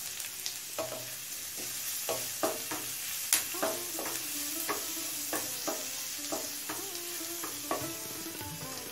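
Chopped garlic sizzling as it fries in hot mustard oil in a pan. It is stirred with a wooden spatula that knocks and scrapes against the pan over and over, from about a second in.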